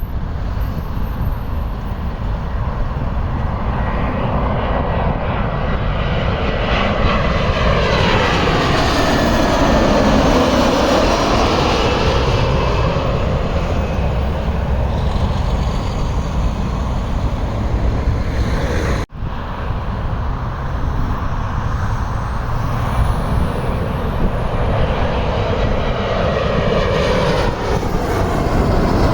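Jet airliner passing low overhead on landing approach: its engine whine falls steeply in pitch as it goes by about ten seconds in, over a steady low rumble. After a brief cut about two-thirds through, another landing jet's whine builds near the end.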